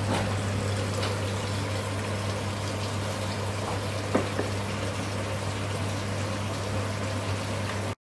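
Chips deep-frying in hot oil in a wok, a steady sizzle over a constant low hum. The sound cuts off suddenly near the end.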